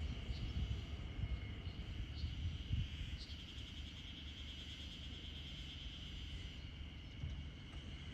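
Insects trilling steadily in a high, continuous chorus, with a faster pulsing trill joining from about three seconds in until near the end. Irregular low rumbles sit underneath.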